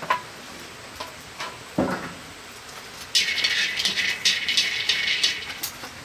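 Chopsticks stirring dry kernels around a metal wok as they dry-roast, a rapid, continuous rattle that starts about three seconds in. Before it come a few sharp clicks and a single knock about two seconds in.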